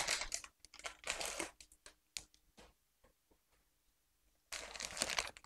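Plastic bag of shredded cheese crinkling as it is opened and handled. Crackly rustling at the start and again near the end, with a quiet spell in between.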